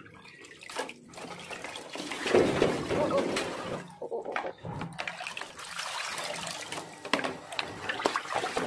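Water sloshing and splashing in a plastic basin as skinned chicken legs are rinsed by hand and lifted out dripping, loudest about two to three and a half seconds in.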